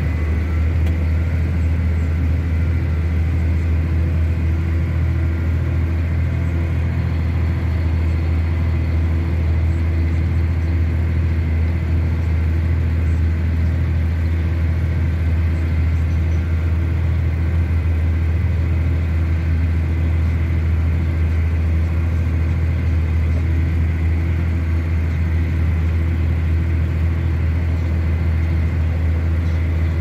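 John Deere tractor's diesel engine running at a steady speed, a deep, even drone with no change in pitch.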